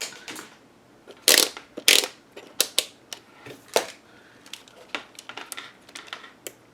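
A run of sharp clicks and knocks from small hard parts and tools being handled on a workbench, two of them louder than the rest about one and two seconds in.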